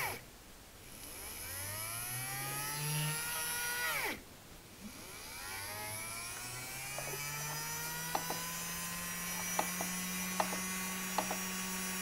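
Small DC motor of a cordless multitool, run from a bench power supply, whining as it spins up from a stop. About four seconds in it is stopped again, then spins back up and runs steadily with a few light clicks. The motor is weak: it can be held still easily by hand and needs a push to start, which the repairer takes for a fault in the motor.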